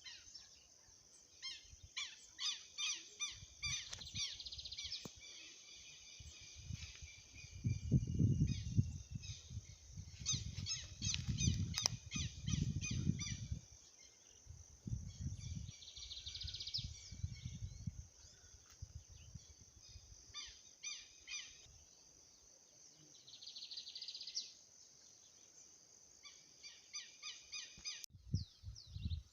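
Birds calling outdoors in a series of short repeated chirps, with low rumbling noise swelling up about a quarter and again about halfway through.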